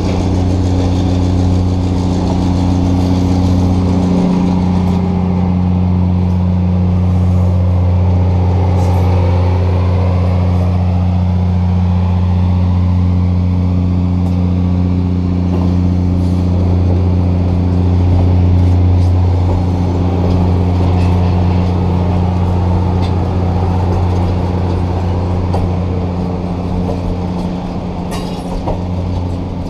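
Passenger cars of a diesel-hauled excursion train rolling slowly past, over a steady, deep diesel engine drone that holds one pitch throughout, with a few faint clicks near the end.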